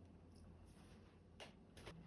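Near silence: faint room tone with a couple of faint clicks in the second half.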